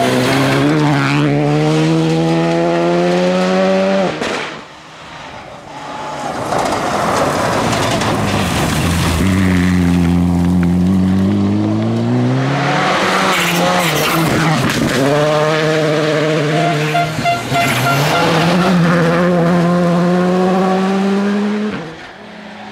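Rally cars on a loose gravel stage passing one after another at full throttle. Each engine note climbs in pitch as it revs up, and one falls then rises again as the driver lifts and gets back on the throttle. The rush of tyres on gravel lies underneath, and the sound dips briefly about four to five seconds in.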